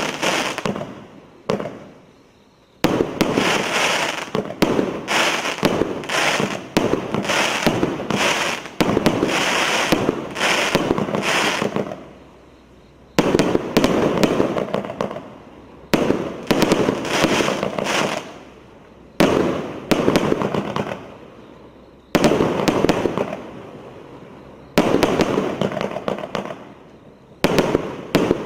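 A 120-shot firework cake ('1000 and 1 Nights' battery) firing in rapid volleys. It gives sharp launch and burst reports with crackling tails, coming in runs of several shots broken by short pauses.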